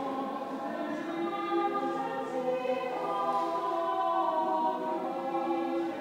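Church choir singing choral Evensong, in long held notes from several voice parts at once.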